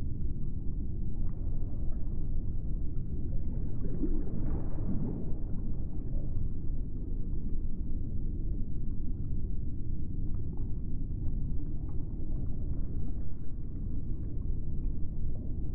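Steady low rumble with faint scattered ticks and no clear pitch or rhythm.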